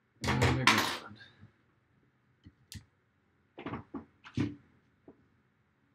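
Small hard tools and parts handled on a workbench: a loud clatter in the first second, then several lighter knocks and taps.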